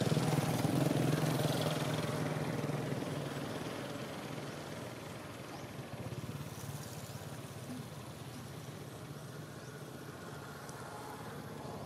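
A motor vehicle's engine running with a steady low hum that fades away over the first few seconds, leaving a quieter background.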